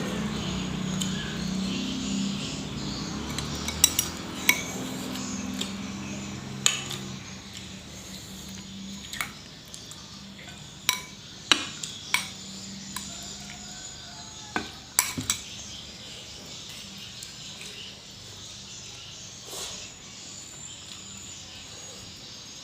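Metal cutlery clinking against a plate in sharp, separate knocks, a dozen or so spread unevenly as food is scooped up. A low steady drone fades out over the first few seconds.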